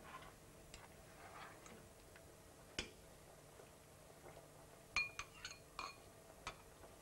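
Faint clinks of a spoon against a dish: a single knock about three seconds in, then a quick run of clinks about five seconds in, the first one ringing. This is the cornstarch-and-water thickener being mixed for the veal stew.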